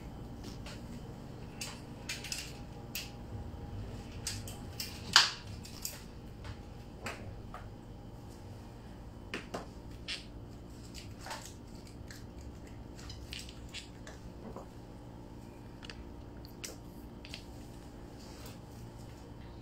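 Small scattered clicks and taps of hands working cake pops on toothpicks into a styrofoam cone, with one sharper knock about five seconds in, over a steady low hum.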